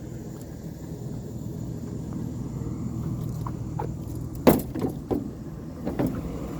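Pickup truck engine idling steadily, with a few sharp clunks starting about four and a half seconds in, the first one the loudest.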